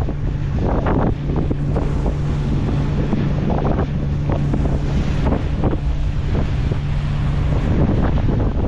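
Wind buffeting the microphone and water rushing along a sailboat's hull in a freshening breeze, with a steady low hum underneath.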